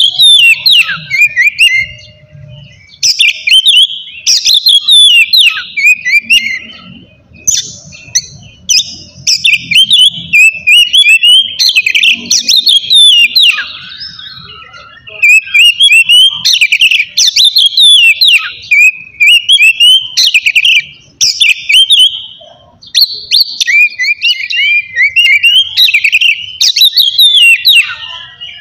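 Oriental magpie-robin (kacer) singing loudly in long run-on phrases of quick varied whistles and chatter, with a few brief pauses.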